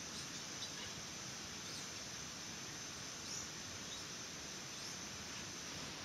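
Tropical forest ambience: a steady, even hiss with a few faint, short high chirps about once a second.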